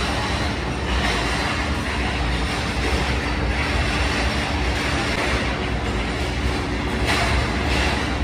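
Steady workshop machinery noise: a dense, continuous din with a low rumble and a faint held hum under it.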